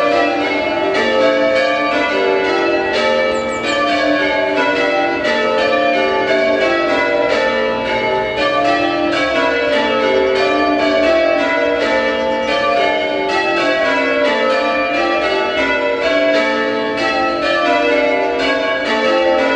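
Church bells change ringing: a ring of tower bells struck one after another in an even, unbroken run, about four strokes a second, each note ringing on under the next.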